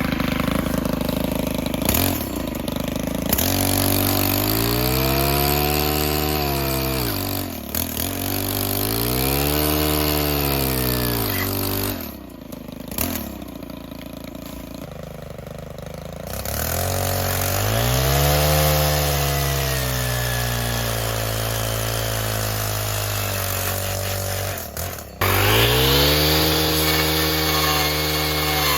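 Brush cutter engine revving up and dropping back again and again as its chainsaw-tooth blade cuts through brush and small trees. It settles to a quieter idle for a few seconds about twelve seconds in, then revs again.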